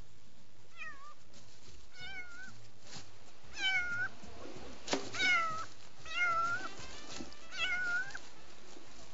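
A man imitating a domestic cat's meow with his tongue: about six short, convincing meows, each rising then falling in pitch, a second or so apart. A couple of sharp knocks come in between.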